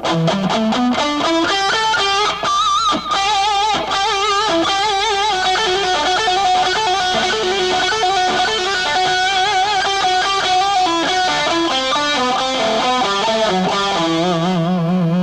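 Electric guitar playing a slow lead lick in E minor. It opens with a pentatonic run climbing up, moves into trills and held notes with vibrato through the middle, and near the end runs down a scale to finish on a low E.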